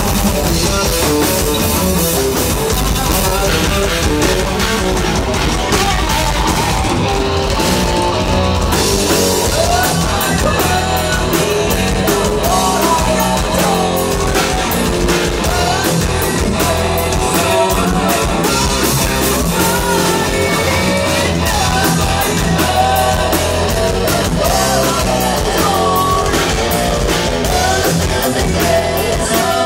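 A live rock band playing loudly and without a break: electric guitar, electric bass and drum kit, with sung vocals over them.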